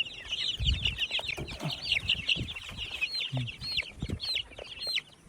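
Two-week-old ayam kampung chicks peeping. A dense chorus of high peeps thins in the second half to single peeps about twice a second.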